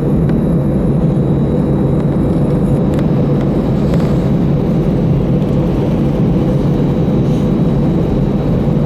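Steady cabin noise inside an Airbus A319-112 taxiing after landing: a continuous low rumble of its CFM56 engines at idle and the air system, with a steady hum.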